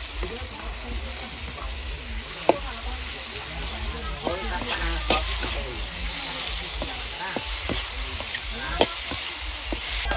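Food frying in hot oil in a steel wok, a steady sizzle, while a metal ladle stirs and scrapes against the pan with frequent clinks, two of them sharper clanks, a couple of seconds in and near the end.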